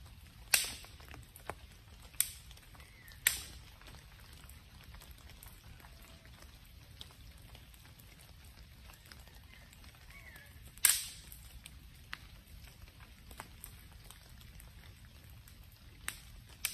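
Wood campfire of branches burning, with about five sharp, loud pops and cracks at irregular intervals, the loudest about half a second in and near eleven seconds.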